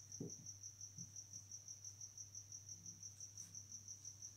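A cricket chirping faintly in a fast, even pulse of about six or seven chirps a second, over a low steady hum. A few soft ticks come from a marker writing on a whiteboard.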